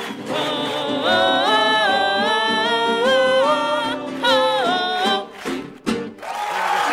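Singers holding long sung notes in harmony that step up and down in pitch, the closing vocal line of a live song. The singing stops about five seconds in, and talking starts near the end.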